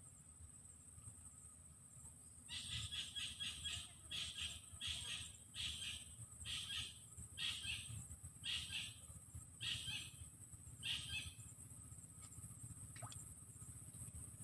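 A bird calling: a quick stuttering run of notes, then about nine repeated notes just under a second apart, stopping about eleven seconds in.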